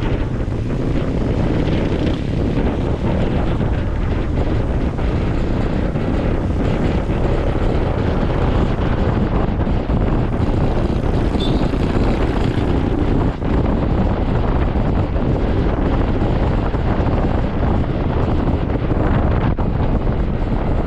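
Steady wind rushing over the microphone of a camera on a moving Honda ADV160 scooter, with the scooter's engine and road noise underneath.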